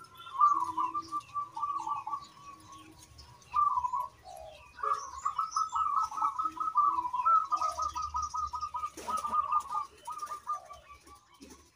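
Zebra dove (perkutut) cooing: repeated rolling, trilled coo phrases, the longest running from about five seconds in almost to the end, with faint high chirps from small birds behind it.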